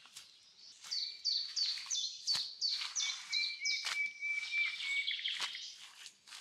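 A songbird singing a quick run of repeated high, falling whistled notes, about three a second, with a held note partway through. A few sharp knocks come about a second and a half apart.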